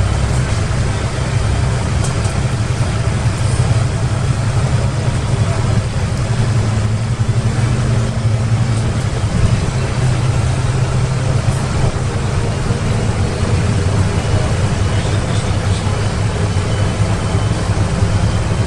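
Karosa B961 articulated city bus heard from inside the cabin while driving: a steady low engine drone with road and body noise.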